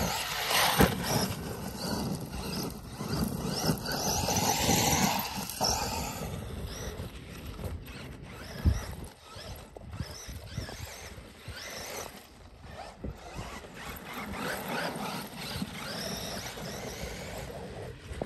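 Traxxas E-Revo 2.0 RC truck driving over dirt: its electric motor whines, rising and falling in pitch with the throttle. Two sharp thumps stand out, about a second in and just before nine seconds.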